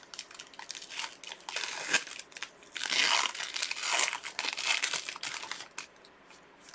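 Plastic wrapping crinkling and tearing as a sealed trading-card package is opened by hand. The crinkling is busiest and loudest in the middle, then dies down near the end.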